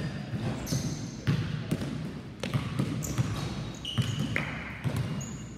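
Several basketballs being dribbled at once on a hardwood gym floor: many overlapping, irregular bounces.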